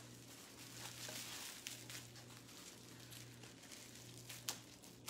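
Faint rustling of plastic packaging being handled, with one sharp scissor snip about four and a half seconds in.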